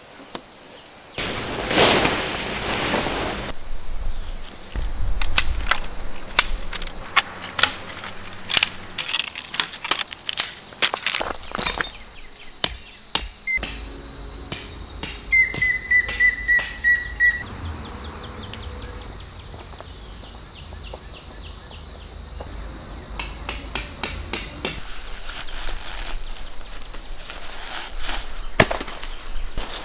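Camping gear being handled and set up on gravel: a burst of rustling near the start, then runs of sharp knocks and clicks. A bird gives one level whistled note about halfway through, over a high steady insect drone.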